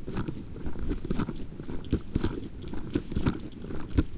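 Footsteps of a person walking with a handheld camera: irregular crunchy knocks about twice a second over a low rumble of the microphone rubbing and being handled.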